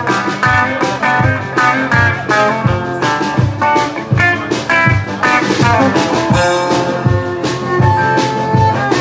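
Live country band playing an instrumental passage: fiddle bowed over strummed electric guitars and a drum kit keeping a steady beat of about two hits a second. Near the end, a long note is held.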